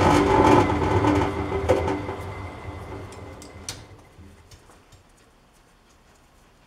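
MAS metal lathe running and then switched off, its motor and gearing winding down to a stop over about four seconds, with a few light clicks as it slows.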